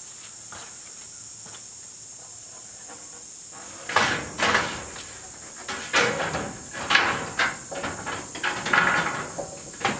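A corrugated metal siding panel rattling and scraping in loud, irregular clatters as it is pushed and held against the shed's wooden framing, starting about four seconds in. Insects keep up a steady high-pitched chirring underneath.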